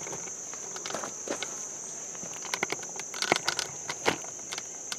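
Steady high trilling of crickets, with scattered light clicks and taps from parts and tools being handled, a quick cluster of them about three seconds in.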